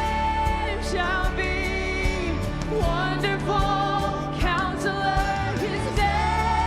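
Worship band music: drums keeping a steady beat under bass and sustained chords, with a singing voice carrying the melody.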